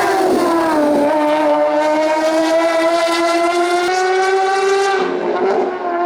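Race car engine running hard up a hillclimb. Its pitch falls in the first second, then climbs steadily for about four seconds. It breaks off briefly near five seconds in, then picks up again.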